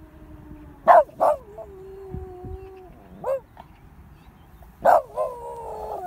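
A dog barking sharply twice about a second in and twice near the end, with long drawn-out howling tones between, then a wavering howl that drops in pitch as it trails off; the dog is reacting to a civil-defence siren test.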